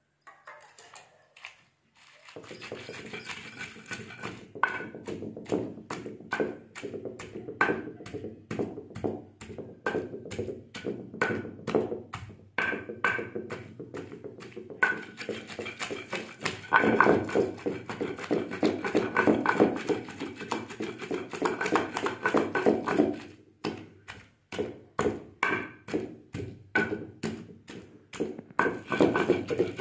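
A long wooden pestle pounds a coarse, wet peanut chutney paste in a heavy stone mortar: steady, repeated thuds at roughly two to three strokes a second. They start about two seconds in and stop briefly a little after two-thirds of the way through.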